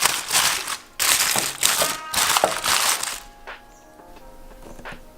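Wrapping crinkling and crackling loudly as it is pulled open, in several bursts over about three seconds. Then quieter background music with held notes.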